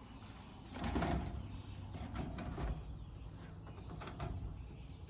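Wooden rabbit hutch door being opened: scraping and rattling about a second in, then lighter scrapes and a few knocks against the wood and wire mesh.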